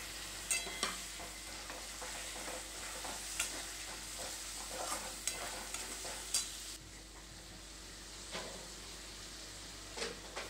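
Onions, garlic, ginger and green chilli paste sizzling in mustard oil in a kadai, stirred with a metal spatula that scrapes and clicks against the pan now and then. The sizzle grows quieter about seven seconds in.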